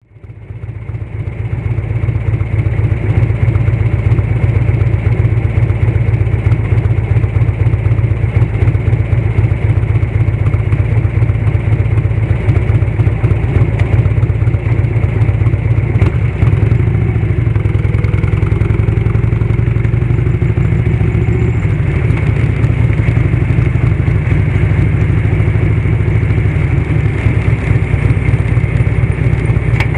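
1991 Harley-Davidson Electra Glide sidecar rig's Evolution V-twin running under way, exhaust through a fish-tail silencer. The sound fades in over the first second or two, then holds steady.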